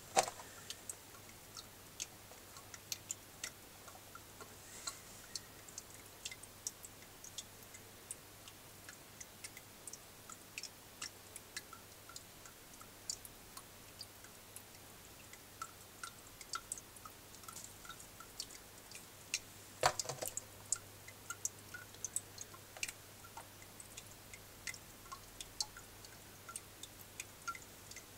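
Yemen (veiled) chameleon chewing its food: faint, irregular crunchy clicks, with a louder flurry about twenty seconds in, over a low steady hum.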